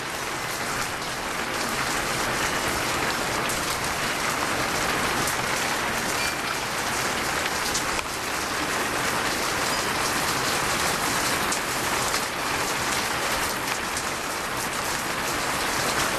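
Rain falling steadily in a thunderstorm: an even hiss of drops, with scattered sharper drop hits.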